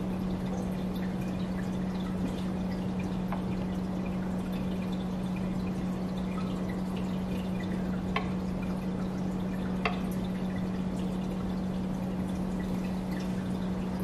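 Steamed milk pouring from a metal pitcher into an espresso cup, with a steady low hum underneath and two light clicks in the second half.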